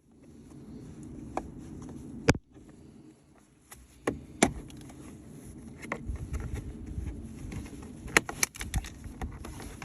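Sharp clicks and knocks over a low steady rumble, with one loud click about two seconds in and a quick cluster near the end.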